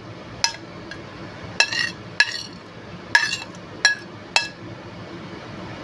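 A metal utensil clinking and scraping against a ceramic plate and a glass bowl as vegetables are pushed off the plate. There are several sharp, ringing clinks at uneven intervals.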